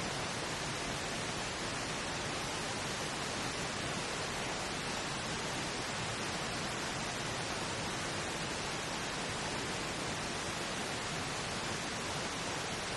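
Steady synthetic pink noise: an even, unbroken hiss that serves as the masking layer of a subliminal affirmation track.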